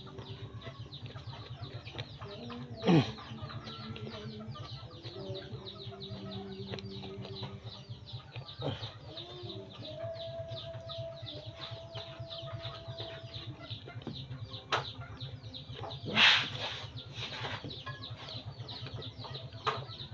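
Chickens clucking in the background while a man chews a mouthful of eggplant close to the microphone, over a steady low pulsing hum. Louder sudden noises come once early on and again about two-thirds of the way through.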